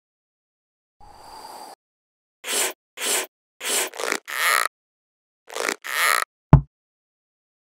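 Cartoon sound effects for an animated logo: a faint short whoosh, then about seven short puffing sounds in two quick groups, ending in one low thump, the loudest.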